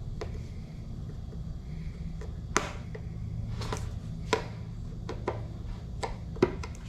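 Metal staples being pried out of a heavy cardboard shipping box with pliers: a string of irregular sharp clicks and snaps, a few of them louder, over a steady low hum.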